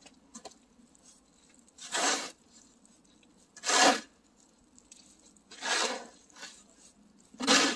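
Snow shovel scraping across an asphalt driveway while clearing heavy, slushy snow: four strokes, one about every two seconds.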